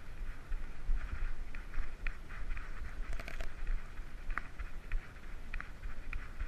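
Bumping and rustling from a GoPro worn by a trotting dog: footfalls jolt the camera housing in a pulsing low rumble, with brush swishing past and a few short sharp ticks.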